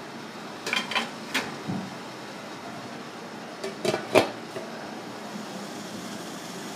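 Plates and a lid knocking against a metal steamer pot as it is loaded and covered: a few light clinks about a second in, then a louder cluster of clanks near four seconds, over a steady background hiss.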